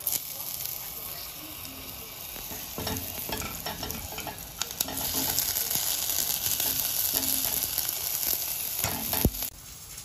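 Chopped onion and garlic being scraped off a wooden cutting board into a hot stainless-steel pan, sizzling as they land, with knocks and scrapes of the board against the pan. The sizzle grows louder about halfway through as more falls in, and a sharp knock comes near the end.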